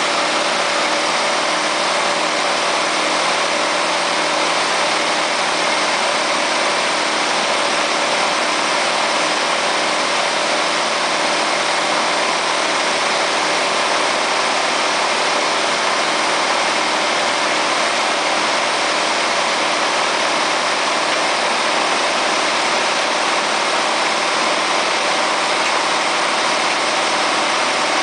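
The engine of a 1966 Kaiser Jeep M52A2 truck running steadily, driving the hydraulics of its Telelect digger derrick as the boom and auger are worked.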